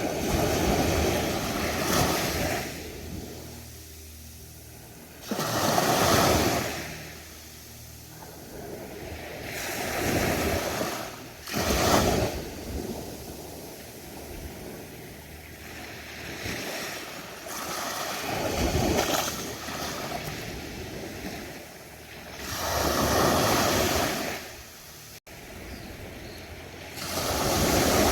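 Ocean waves breaking on a beach, one surge of surf every few seconds, each rising and falling away, with some wind on the microphone.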